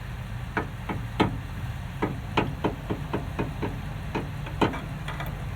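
Front CV axle of a 1999 Ford Expedition being pulled out through the hub opening: a run of sharp metal knocks and clinks, about fifteen in all and coming roughly three to four a second in the middle, over a steady low hum.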